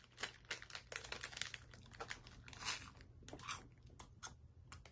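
Faint, irregular crunching and chewing of a chocolate-coated fugashi, an airy puffed wheat-gluten snack, mixed with crinkles of its wrapper.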